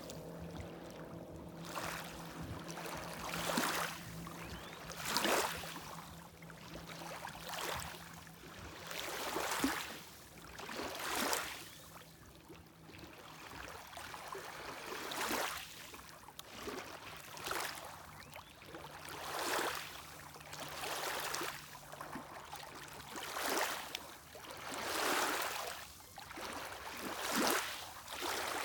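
Small lake waves lapping on the shore, a wash of water every one to two seconds. A faint steady low hum runs underneath and fades out about three quarters of the way through.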